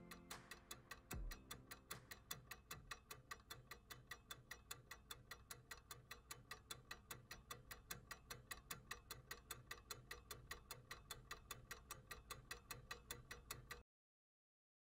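Faint, even clock-like ticking, about five a second, over a soft low pulse: the tail of the background music track. It cuts off abruptly near the end.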